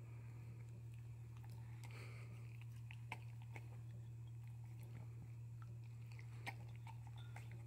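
Shetland sheepdog eating soft food from a hand: faint wet chewing and mouth clicks, with a couple of sharper clicks about three seconds in and near the end, over a steady low hum.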